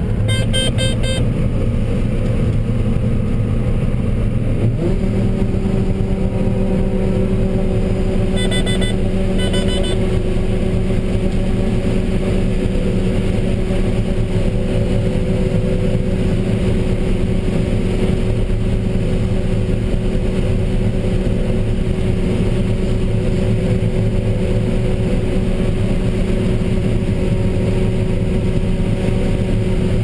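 John Deere 9770 combine harvesting corn, heard from inside its cab: a steady, even drone of the diesel engine and threshing machinery working under load, with a humming tone that settles in about five seconds in. Short runs of electronic beeping sound about a second in and again around nine to ten seconds in.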